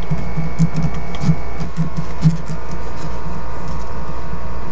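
Steady mechanical hum with a low drone and a few faint steady whining tones, with soft irregular knocks in the first couple of seconds.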